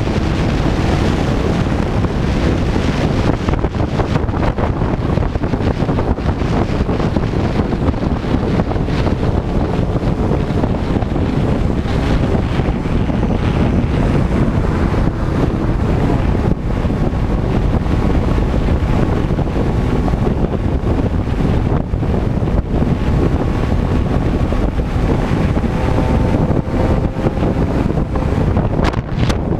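Wind buffeting the microphone of a helmet-mounted camera on a moving motorcycle, a steady heavy rush that covers the engine almost entirely.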